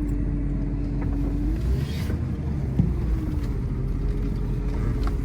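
Car engine running with the low rumble of the vehicle moving; its note rises about a second and a half in as it picks up speed, then holds steady. A single short knock sounds near the middle.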